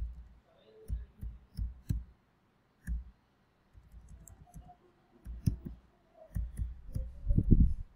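Typing on a computer keyboard: irregular keystrokes in short runs with pauses between them, the busiest and loudest run near the end.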